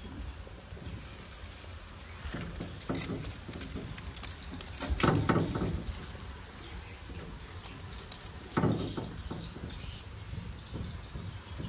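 Open grill fire crackling and popping under a grate of bananas and pork, with three louder, brief noisy bursts.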